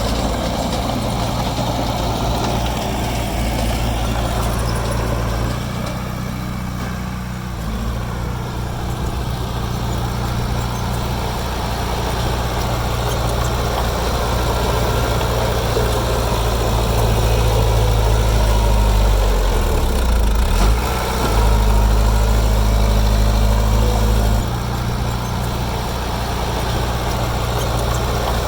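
Heavy diesel engine of earthmoving machinery running steadily. It grows louder about two-thirds of the way through, dips briefly, then drops back near the end.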